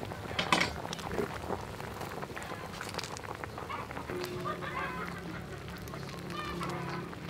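Pot of soup at a rolling boil, with a sharp knock about half a second in. Nasal, honking calls of domestic fowl come twice in the second half.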